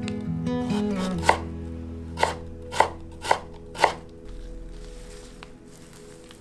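Chef's knife slicing carrot into strips on a bamboo cutting board: about five sharp knocks of the blade on the board, roughly two a second, stopping about four seconds in, over soft background music.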